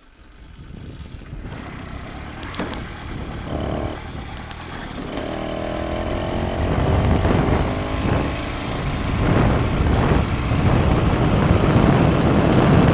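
Motorized bicycle's small engine starting and pulling away, getting steadily louder as the bike picks up speed, with wind rushing over the microphone.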